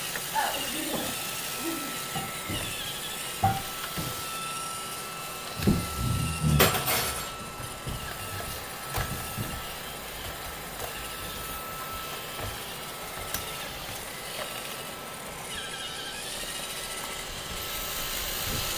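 Roomba robot vacuum running: a steady whirring hiss with a faint thin whine. A few knocks and a short clatter come about six seconds in.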